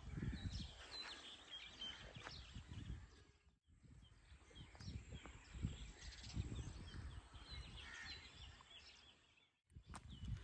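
Outdoor ambience with many short bird chirps over an uneven low rumble. The sound drops out briefly about three and a half seconds in and again near the end.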